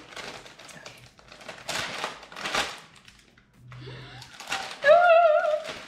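Foil bag crinkling and crackling as it is pulled and torn open by hand, in irregular bursts of rustle. A short voiced exclamation is heard near the end.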